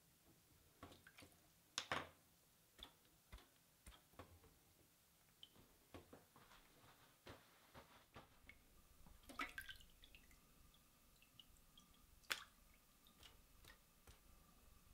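Faint water drips and small splashes in a stainless steel sink as hands rub a sheet of paper under the water. Scattered single drips; the two loudest come about 2 s and 12 s in.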